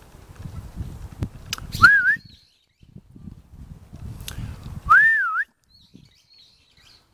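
A person whistling two short notes about three seconds apart. Each is a clear whistle that rises, then dips and rises again, like a call to get the dogs' attention.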